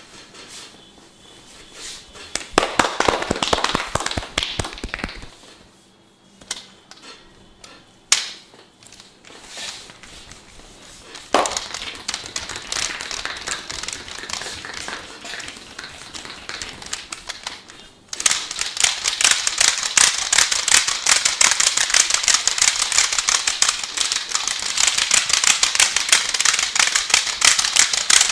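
Percussive massage: hands tapping and slapping on the body in quick strokes, with two single sharp snaps in the middle and a dense, fast run of strokes for the last third.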